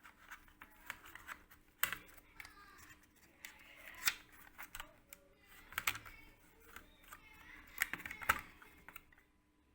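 Irregular small clicks and light scraping as a 2.5-inch laptop hard disk is worked loose and lifted out of its bay.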